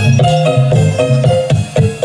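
Music played loud through a large outdoor PA system: a melody of short separate notes over a strong, steady bass line.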